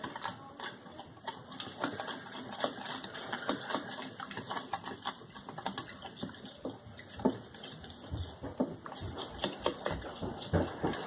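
Metal wire whisk beating a watery slime mixture in a plastic bowl: rapid, uneven clicking and tapping of the wires against the bowl as it is stirred hard.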